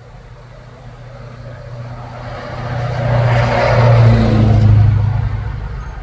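A motor vehicle driving past: its low engine hum and road noise swell to a peak about four seconds in, then fade toward the end.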